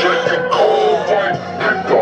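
Hip-hop song with a vocal line played loud through a car stereo's Pyle Pro PMW6A midrange speakers during a sound test.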